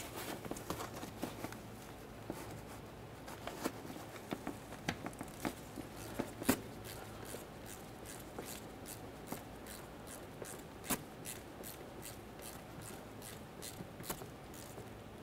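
Faint ratchet clicking as the T27 Torx mounting bolt of a transmission speed sensor is run down and snugged up. It starts with scattered clicks and light knocks of the tool on metal, then a steady run of quick clicks, about three a second, in the second half.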